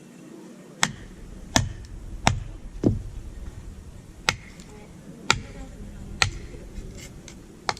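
A series of eight sharp knocks at uneven intervals, like chopping strikes, the first few the loudest.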